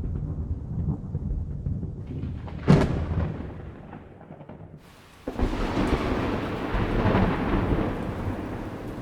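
Thunder: a rolling rumble, a sharp crack about three seconds in that trails off into rumble, then a fresh rumble that starts suddenly about five seconds in with a hiss of rain and slowly fades.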